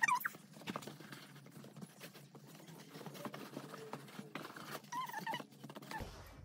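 Irregular light clicks, taps and rustling of pink panels of a small storage box being handled and fitted together by hand.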